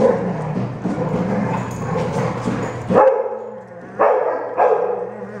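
Puggle puppy and rough collie at play: about three seconds of continuous dog vocalizing, then three short, sharp barks about a second apart.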